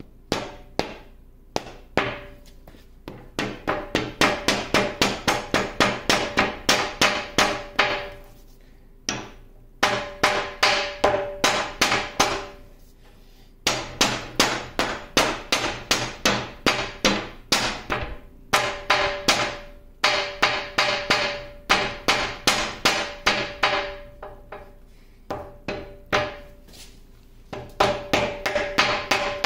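Mallet blows on the cast-iron end bracket of a 1950 LeBlond Regal lathe's lead screw and feed rod, knocking it loose along the shafts. The blows come about four a second in runs of several seconds with short pauses, and each one leaves a brief metallic ring.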